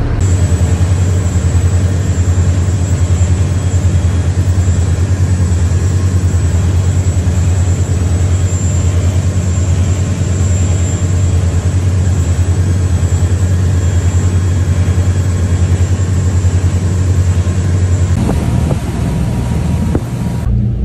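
A tour boat's engines running steadily underway, a deep, even drone with a faint high whine above it. The drone shifts in tone a couple of seconds before the end.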